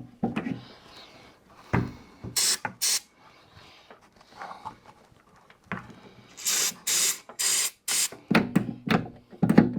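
Aerosol lubricant sprayed in short hissing bursts into the stiff outside push button of a Jeep XJ rear door lock: two quick bursts about two and a half seconds in, then about four more around seven seconds. Scattered clicks and knocks between the bursts and near the end.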